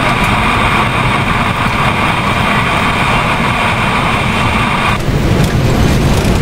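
Jet engines and rushing airflow of a Boeing 777 freighter in the landing flare: a loud, steady rush with a steady whine in it. About five seconds in, the whine drops away and a lower rumble is left.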